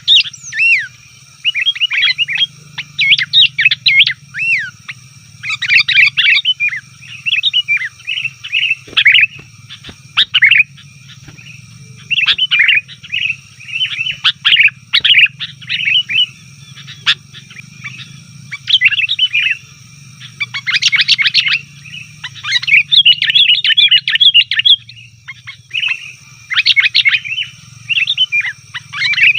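Sooty-headed bulbuls chattering noisily: rapid bursts of short, bubbly chirps and whistled notes following one another almost without pause, a rowdy bulbul chorus of the kind used as a lure call.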